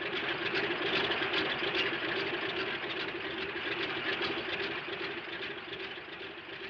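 Propeller airplane's piston engine running, a rough, rapid pulsing over a steady hum. It eases off a little in level near the end.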